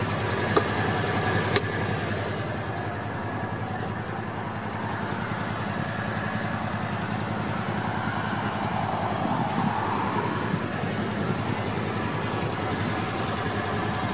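Kawasaki Teryx4 800 side-by-side's V-twin engine idling steadily, with two light clicks in the first two seconds.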